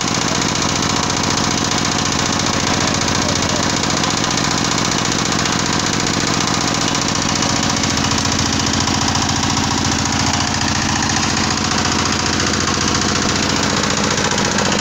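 Mini screw press for palm oil running under load, its screw forcing palm fruit fibre out past the cone, with a steady, fast mechanical clatter.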